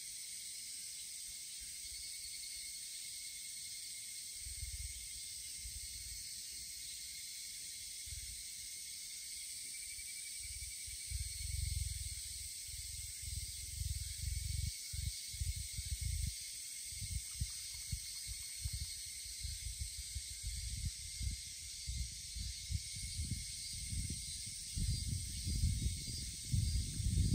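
Steady high-pitched drone of a cicada chorus. From about a third of the way in, wind buffets the microphone in low, irregular rumbles that grow stronger near the end.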